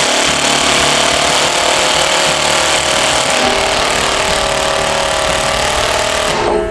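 Ryobi brushless impact driver in mode 2 hammering a 4-inch coarse exterior screw into a timber post: continuous rapid impacting that cuts off abruptly near the end.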